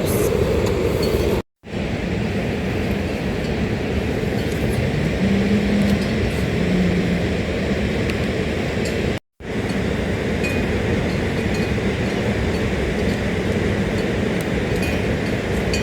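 Heavy rain falling steadily, a dense even hiss with faint scattered drips and clinks. It breaks off to silence twice for a moment.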